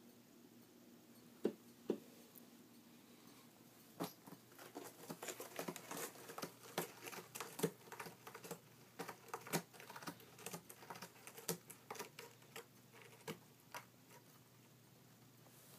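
A cat scratching an Emery Cat Board scratching pad with her claws: two single taps near the start, then from about four seconds in a dense, uneven run of short scratching strokes lasting some ten seconds.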